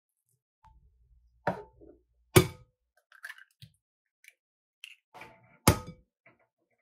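Eggs knocked against the rim of a glass mixing bowl to crack them: three sharp knocks, each with a brief glassy ring, the loudest about two and a half seconds in and the last near the end, with soft shell crackles between them.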